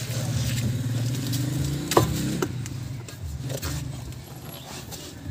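A motor vehicle engine running steadily in the background, fading after the middle, with two sharp metal knocks about two seconds in as the steel steering knuckle is worked against the strut's mounting bracket.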